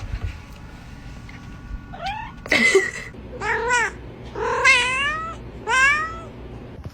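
A cat meowing over and over, about five drawn-out meows starting about two seconds in, each rising and then falling in pitch; one is rougher and more strained than the others.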